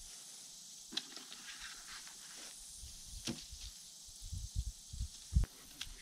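Windfall apples being dropped into gaps in a grass-clipping compost pile, with footsteps and rustling in the dry grass. A few sharp knocks are spread through it, and a run of low thumps comes near the end, the loudest just before it ends. A faint steady high hiss lies underneath.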